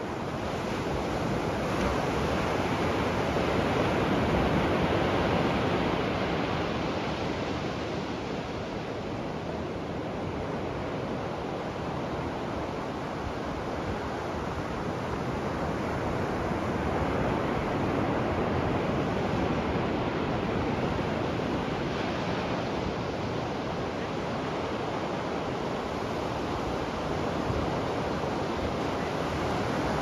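Ocean waves breaking and washing up on the beach: a steady rush of surf that swells and eases every ten seconds or so.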